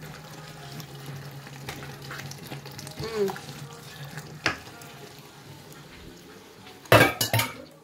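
A pot of egusi soup frying and sizzling on the stove over a steady low hum, with a few small clicks. About seven seconds in comes a quick run of loud clatters of a utensil against cookware.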